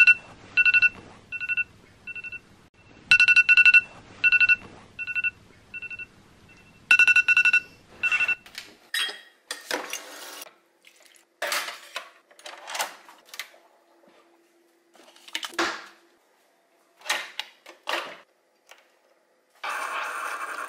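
Smartphone alarm beeping in repeated groups of two-tone beeps for about eight seconds, then stopping. A run of short kitchen sounds follows, among them a refrigerator door dispenser running water into a ceramic mug. Near the end a single-cup Keurig coffee maker starts to brew.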